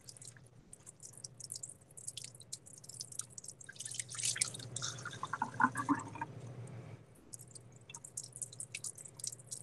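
Cold tap water running in a thin stream into a small cup held under the faucet and spilling into the sink, heard as a patter of small splashes and drips.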